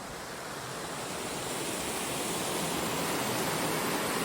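Rushing water of a rocky creek cascade, a steady hiss that grows gradually louder.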